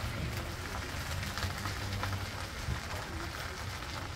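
Water buffalo cart rolling along a sandy road: a steady low rumble from the wheels with scattered small crackles of grit under them.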